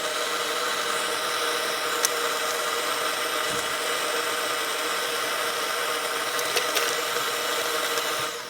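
A steady mechanical whir with a faint hum, like a small motor running, starting and stopping abruptly, with a few faint clicks.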